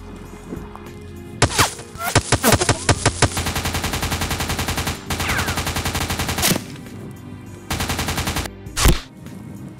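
Rifle gunfire sound effects: a few separate shots, then a long burst of rapid automatic fire lasting about three seconds, a shorter burst, and one loud final shot, over background music.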